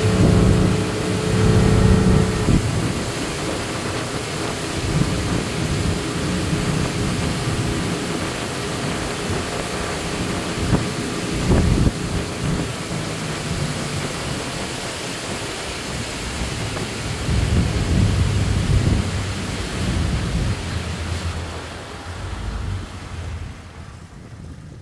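Wind rushing over the microphone and water noise of a boat running at speed, with the low drone of its Yamaha 250 four-stroke outboard underneath. The rush dies down near the end.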